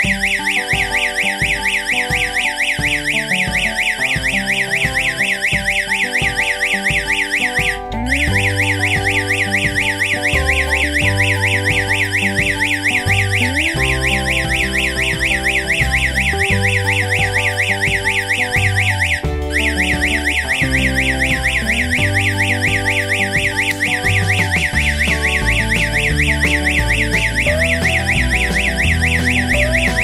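Electronic alarm siren (siren strobe unit) sounding a fast, high warble. It cuts out briefly twice and starts again, the siren re-triggering while a panic button is still held in.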